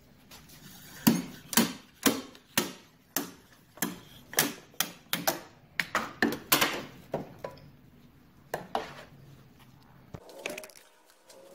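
Repeated sharp metal knocks, roughly two a second and then sparser, as a power trim and tilt unit is worked onto an outboard motor's mounting bracket and its pivot post.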